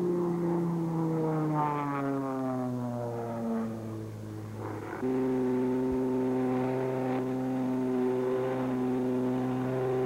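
Aero Commander Shrike's twin piston engines and propellers during a low pass, their drone falling steadily in pitch as the plane goes by. About halfway through it changes suddenly to a louder, steady engine drone heard inside the cockpit.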